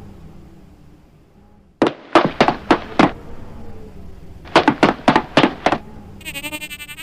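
Two rounds of about five quick, sharp knocks, a second or so apart. A warbling electronic tone starts near the end.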